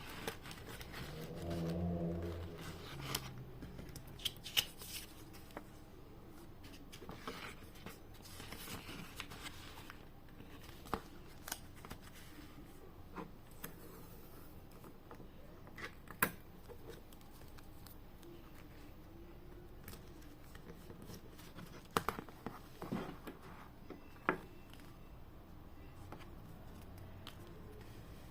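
Parcel packing at close range: scattered clicks, taps and rustles as packing materials are handled, with a brief low hum about two seconds in.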